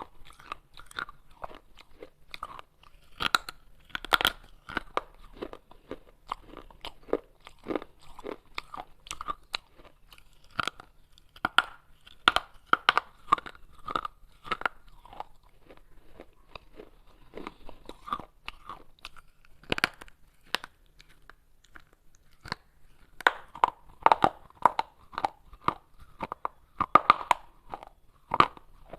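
Baked clay pot pieces being bitten and chewed close to the microphone: an irregular run of sharp, dry crunches, easing off twice for a couple of seconds before picking up again.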